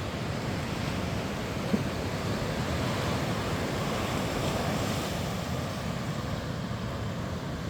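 Ocean surf washing steadily, with wind buffeting the microphone and a single brief click a little under two seconds in.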